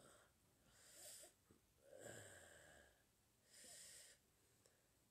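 Very faint: a man's soft breaths through the nose, three of them about a second apart.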